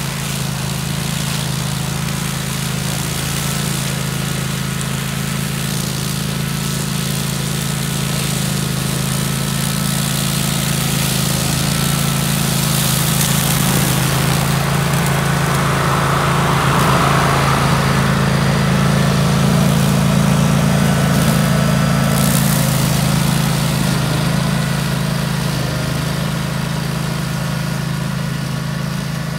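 Kawasaki engine of a DR brush cutter running steadily, growing a little louder through the middle and easing back toward the end.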